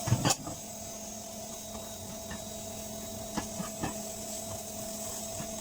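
Stir-frying fried rice in a pan: a utensil knocks against the pan about a quarter-second in, and there are two lighter taps around the middle. Under them runs a steady kitchen hum with a faint hiss of frying.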